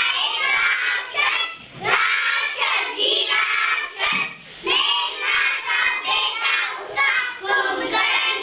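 A group of young children singing an action rhyme together in unison, in short phrases with brief pauses between them.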